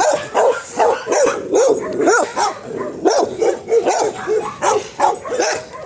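Dogs barking, a rapid run of short barks at several different pitches, some overlapping.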